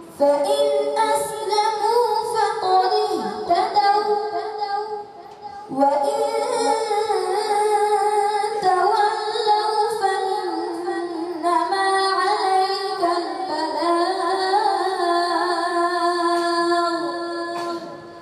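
A boy reciting the Quran in a melodic, chanted style into a microphone, holding long notes that waver and bend in pitch. His first phrase breaks off about five seconds in, and after a short breath a second long phrase runs until shortly before the end.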